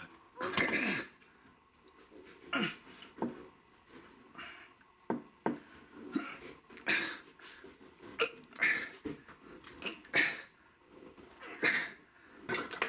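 A person's short, strained breaths and grunts, about one a second, from the effort of bending a stainless-steel spoon handle by hand.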